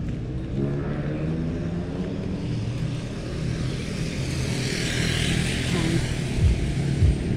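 A motor vehicle's engine running, rising in pitch about a second in, then the rush of a vehicle going past, loudest a little after the middle. A few low thumps come near the end.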